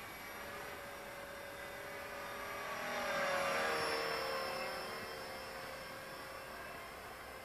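Blade 450 X electric RC helicopter with home-made rotor blades whining as it flies past, growing louder to a peak about three and a half seconds in. The pitch then drops and the sound fades as it moves away.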